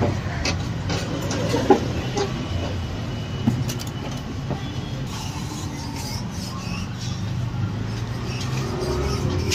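Street noise: a steady low rumble of passing traffic, with scattered clicks and knocks, the sharpest about two seconds in.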